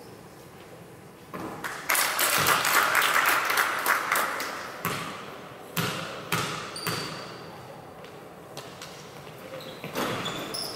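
A basketball game in a large hall: the ball bounces on the court in a series of sharp knocks, with a burst of crowd noise from about two to five seconds in.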